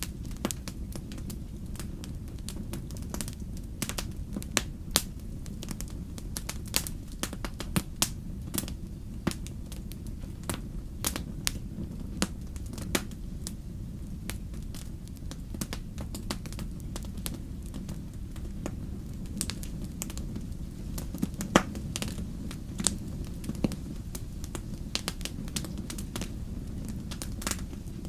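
Wood campfire crackling, with sharp pops at irregular intervals over a low steady rumble; one pop about two-thirds of the way through stands out as the loudest.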